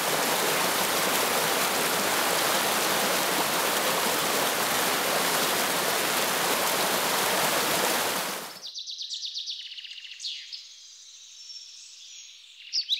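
Rushing water of a cascading brook and small waterfall, a loud steady hiss that cuts off suddenly about eight and a half seconds in. After it, a songbird singing: a quick trill, then varied high chirps.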